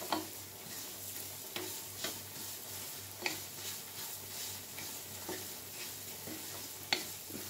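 Fine semolina roasting in ghee in a stainless steel frying pan on medium heat: a steady soft sizzle, with a wooden spatula scraping and tapping against the pan every second or so and one sharper knock near the end.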